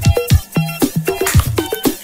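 Upbeat electronic background music with a steady beat.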